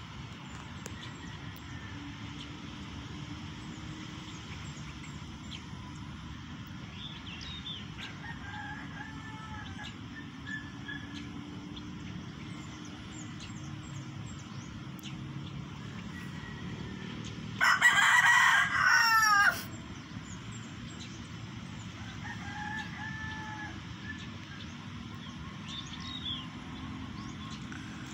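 A rooster crows once, loud, for about two seconds, about two-thirds of the way through. Fainter rooster crows come before and after it, over a steady outdoor hiss.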